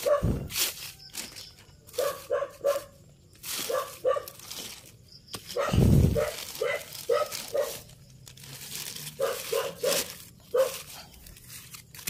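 A dog barking repeatedly in short runs of quick barks, over the crinkle of plastic sheeting being handled. Two dull thumps, one at the start and a louder one about six seconds in.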